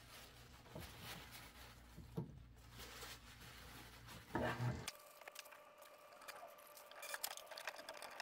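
Faint rustling and rubbing of a paper towel wiping down a hand-crank can opener, with a few light clicks and knocks of metal, more of them near the end.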